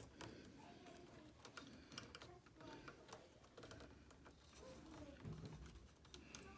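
Faint, scattered small clicks and rustling from hands working a braided cable sleeve and flat ribbon cable into a 3D-printed cable bracket on a 3D printer's frame.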